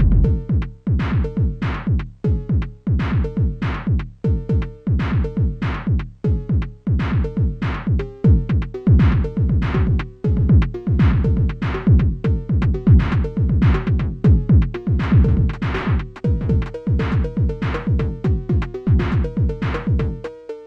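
Cowbell phonk music: a cowbell melody over a dense beat of heavy bass hits that slide down in pitch. The bass drops out just before the end, leaving the cowbell line.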